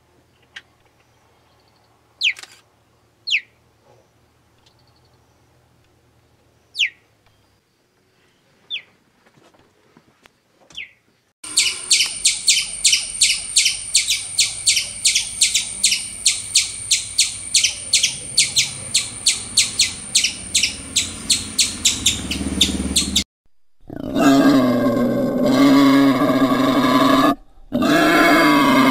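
A few short, falling bird chirps over a quiet background. Then, from about 11 seconds in, a red squirrel's rapid, even chattering calls, about three a second, for some twelve seconds. After a brief gap comes a loud, deep animal call, broken once by a short silence.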